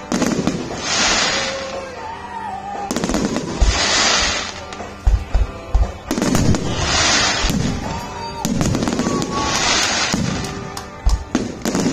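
Fireworks display: aerial shells bursting with sharp bangs and deep booms, between long crackling hisses that swell up every two to three seconds.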